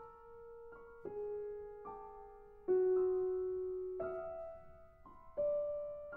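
Solo piano playing slow, sparse notes and chords in the middle register, each struck and left to ring into the next. The strongest stroke comes nearly three seconds in and fades slowly.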